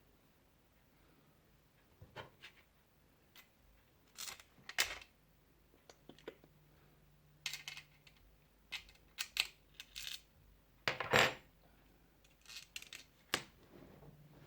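Irregular sharp clicks and light metallic clinks of small hardware parts and tools being handled while a liquid-cooling bracket is fitted to a graphics card, the loudest knock about eleven seconds in.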